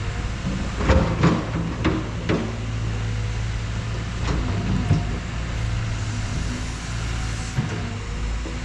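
Excavator's diesel engine running steadily, with several sharp metal clanks in the first half.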